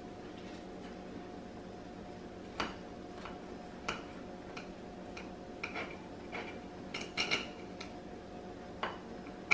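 Knife cutting down through a sandwich of brioche bun and crisp panko-crusted fried cod: scattered light clicks and crackles, thickest in the second half, over a steady faint hum.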